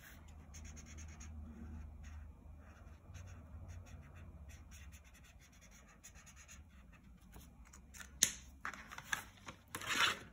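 Gray felt-tip marker scratching faintly on paper in short strokes as small areas are coloured in, with a sharp click about eight seconds in and louder rustling near the end.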